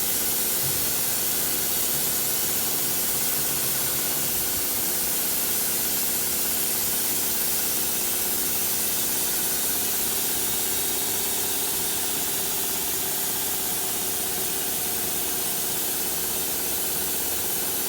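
CNC machining centre running: a steady hiss over a faint, even machine hum, unchanging throughout.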